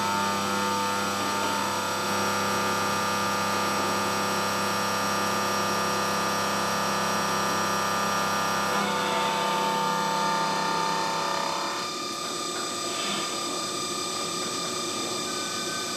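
Optimum Opti F100 TC CNC milling machine running, a steady whine of several pitches. The whine shifts about nine seconds in and becomes quieter and thinner about three seconds later.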